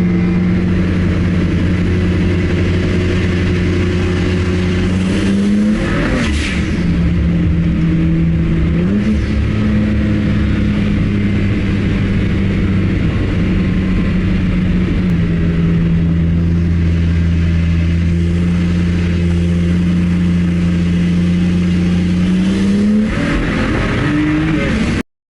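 A BMW 335i's N54 twin-turbo inline-six running loudly at a mostly steady speed. The revs rise briefly about five seconds in, again around nine seconds, and near the end, then the sound cuts off abruptly.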